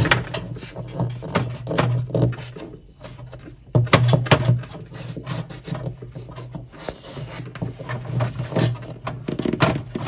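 Screwdriver being forced and worked through the plastic inner wall and insulation of a refrigerator cabinet to make a hole for a cable: a run of irregular scraping, rubbing and clicking strokes, loudest about four seconds in and again near the end.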